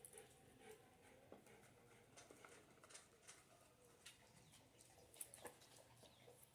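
Near silence with a few faint, scattered clicks from the chainsaw's chain and guide bar being handled.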